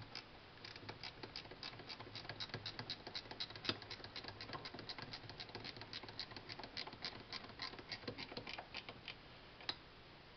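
Ratcheting wrench clicking rapidly, several clicks a second, as it runs down a 12 mm bolt on a turbocharger's wastegate actuator bracket. The clicking stops about nine seconds in, with one last sharper click just after.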